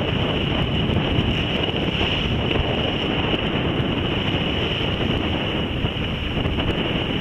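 Wind buffeting the microphone over the wash of water along the hull of a sailboat under way in choppy water.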